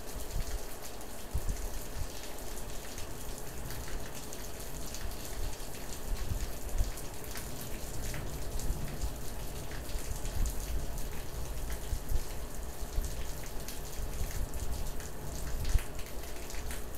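Rain falling in a storm, a steady hiss with many small drop taps, while gusts of wind buffet the microphone with an uneven low rumble.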